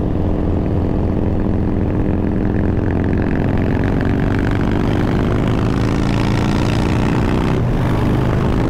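Harley-Davidson Breakout's V-twin engine running under way, heard from the handlebars. Its note climbs slowly as the bike picks up speed, then breaks briefly about seven and a half seconds in.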